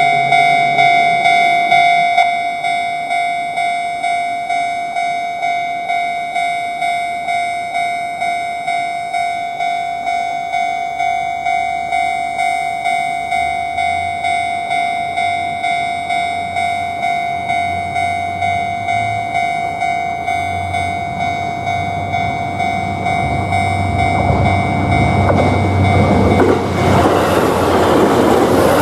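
Japanese railway level-crossing warning bell ringing its electronic 'kan-kan' tone in a steady repeating rhythm while a train approaches. The train's rumble and rail noise build over the last several seconds as it passes, and the bell tone is lost near the end.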